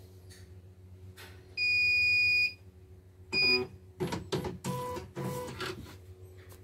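CNY portable embroidery machine starting up: one long electronic beep, a short beep about a second later, then several short runs of motor whirring from the machine.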